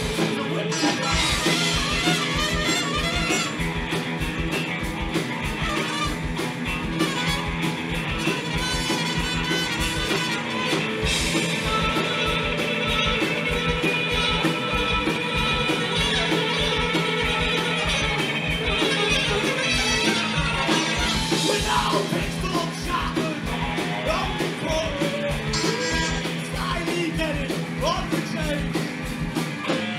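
Live rock band playing: a steady drum beat under electric guitars and bass, with a trumpet and singing on top.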